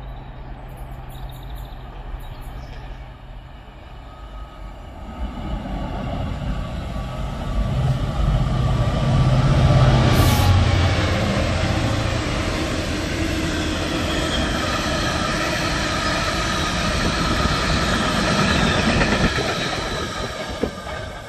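A Class 66 diesel locomotive passes at speed hauling a freight train: its engine drone builds to a peak as it goes by about halfway through. The rumble of the open wagons follows, with a ringing wheel squeal, and fades near the end.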